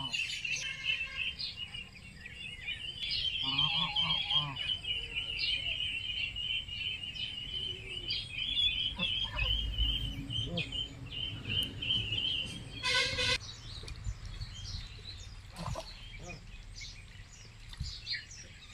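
Birds chirping in a dense, continuous chatter that stops about two-thirds of the way through, followed by one short, louder call.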